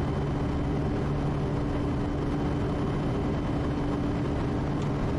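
Quest Kodiak's Pratt & Whitney PT6A turboprop engine and propeller running steadily at climb power just after takeoff: a constant drone with a low, even hum, heard from inside the cockpit.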